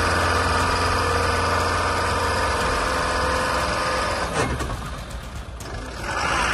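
Vehicle engine running steadily with a low hum. About four seconds in there is a knock, and the sound drops away for a second or so before the engine noise returns.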